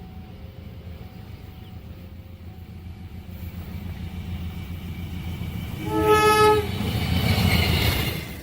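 Train approaching: a low rumble builds, the locomotive gives one short horn blast about six seconds in, then the loud rush of the train passing close, which cuts off abruptly near the end. Faint alternating two-tone beeps in the first few seconds, typical of a level-crossing warning signal.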